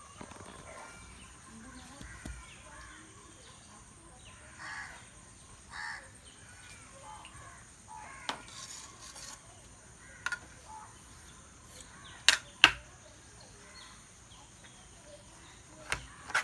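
A knife knocking sharply on a cutting board as a club sandwich is cut, a few scattered taps with the loudest pair about twelve seconds in. Faint bird chirps run underneath.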